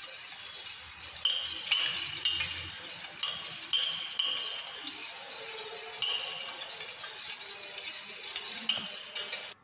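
A spoon stirring in a small stainless steel pot of water, scraping and clinking against the pot's sides again and again, to dissolve sugar and salt.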